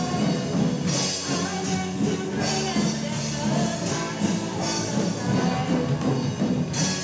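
Rock band playing live on electric guitars, bass guitar and drum kit, a continuous full-band passage with repeated bright cymbal-like accents.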